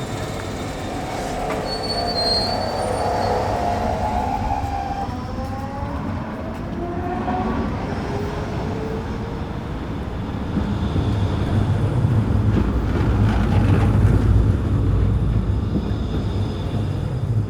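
Train running on rails: thin squealing tones rise slowly in pitch through the first half, then a heavy rumble grows louder about two-thirds of the way in and starts to fade at the very end.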